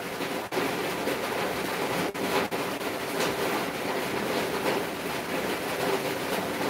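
Steady rushing background noise with a faint low hum, cut by a few very brief dropouts.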